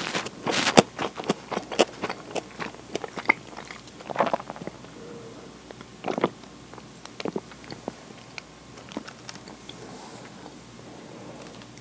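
Close-miked eating sounds: chewing and wet mouth clicks, densest in the first two seconds, with a drink from a can about six seconds in and sparser clicks after.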